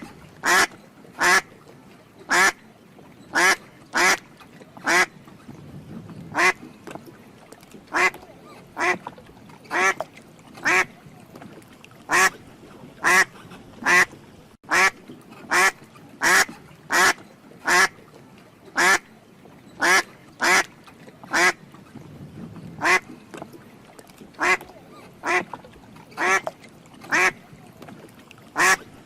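A duck quacking over and over, with short calls about once a second and some coming in quick pairs.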